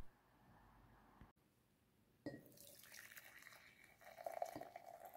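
Faint sound of liquid being poured into a mug. It begins with a soft click a little over two seconds in, after near silence, and carries a steady tone that grows stronger after about four seconds.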